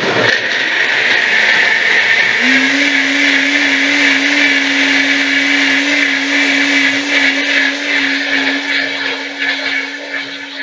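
NutriBullet RX blender switching on abruptly and running at full speed, blending a nut-milk mix. A steady motor hum settles in about two seconds in and holds.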